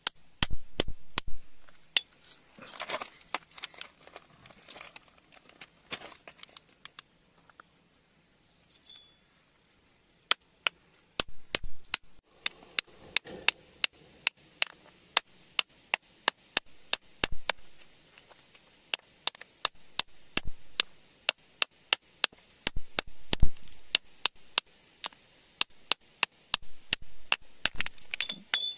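Hard stones and rock being handled while a gem is dug out of wet gravel: many sharp, irregular clicks and clinks with brief scraping of grit between them. After a short pause about a third of the way in, the clicks come thick and fast in the last third.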